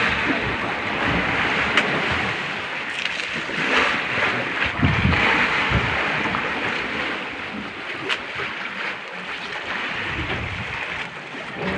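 Sea water sloshing against a small boat's hull, with wind noise on the microphone and a couple of faint clicks.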